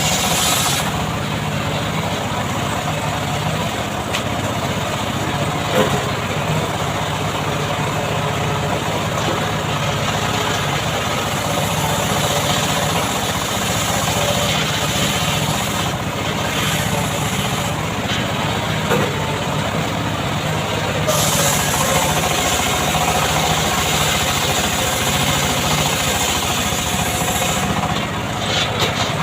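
Homemade chainsaw's small engine running steadily and loudly, its high-pitched noise changing in strength a couple of times.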